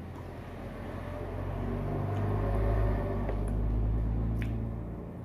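A low mechanical rumble that swells for a couple of seconds and then fades away, with a few light clicks of cutlery on a plate.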